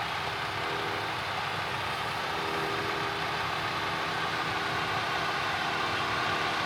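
Diesel farm machinery harvesting corn, its engine running steadily with a constant hum and whine, growing slightly louder.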